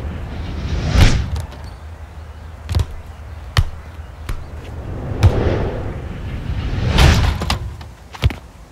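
Footballs being kicked and bounced off a player's feet and head: a sharp thump every second or two, about six in all. The loudest thumps, about a second in and near seven seconds, are each led in by a swelling whoosh.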